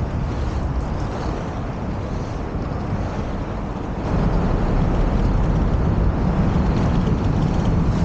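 Inline skate wheels rolling over pavement, a steady rumble that gets louder about halfway through.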